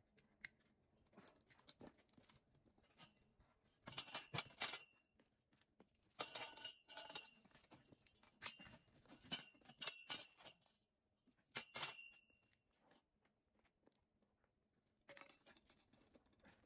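Faint metallic clinks and rattles of steel hand tools being handled, coming in several short clusters, some with a brief ringing tone.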